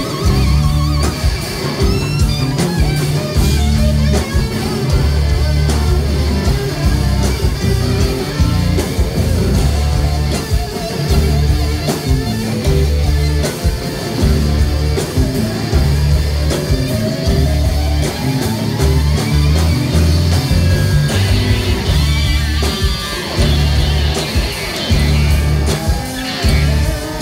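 Live rock band playing an instrumental passage, electric guitar leading over bass and drums with a steady, heavy beat.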